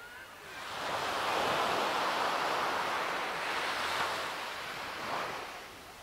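Ocean surf: one wave washes in with a rising hiss about a second in, rushes for a few seconds, then recedes and fades near the end.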